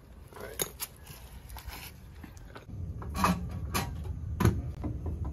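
Scattered metal knocks and clanks of hand tools working on the starter underneath a Jeep Wrangler YJ, with a low steady rumble coming in about three seconds in.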